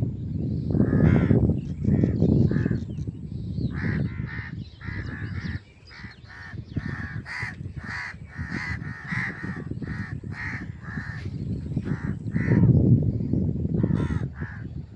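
Several crows cawing, many short calls in quick succession, densest through the middle. A low rumbling noise swells near the start and again in the last few seconds.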